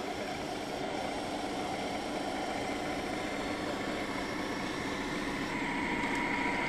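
Radio-controlled model Mercedes-Benz Actros dump truck driving over dirt, its drive giving a steady mechanical drone. A steady higher whine joins about two-thirds of the way through.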